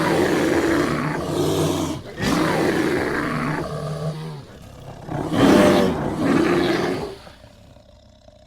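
Polar bear roaring three times, each roar about two seconds long, the third the loudest.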